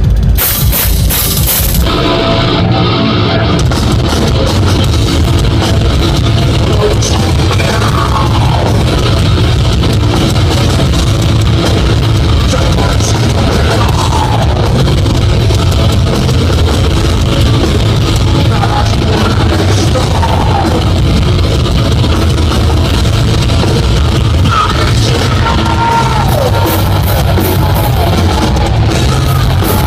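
Heavy metal band playing live at full volume: distorted electric guitars over a drum kit, with a few bending guitar notes.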